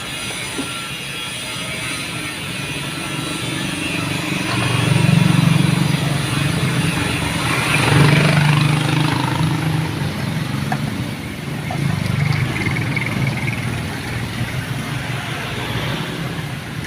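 A motor vehicle engine running, getting louder around five seconds in and again around eight seconds in.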